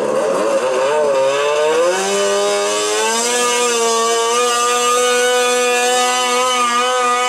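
Snowmobile-engined, nitrous-equipped pulling ATV at full throttle dragging a weight-transfer sled. The engine note wavers at first, climbs about two seconds in, then holds a steady high rev.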